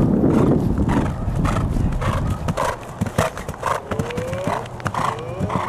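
A horse cantering on grass, its hoofbeats falling in a steady stride rhythm about twice a second, with a jump over a small fence partway through. A loud low rushing noise covers the first second.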